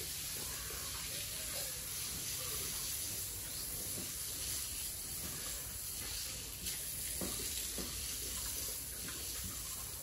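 Piglets feeding at a tyre feeder, with a few faint grunts over a steady hiss.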